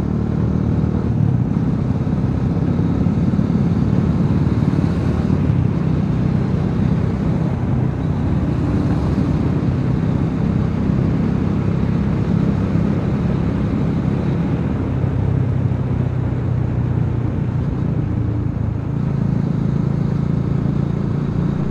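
Motorcycle running steadily while being ridden along the road, a continuous low engine and road rumble.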